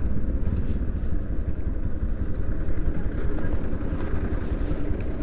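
Motorcycle engine running steadily at low revs, an even low rumble.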